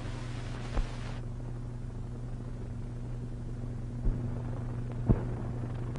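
Surface noise of an old optical film soundtrack: a steady low hum under a hiss, with three sharp pops, about a second in, at about four seconds and at about five seconds. The hiss drops away about a second in.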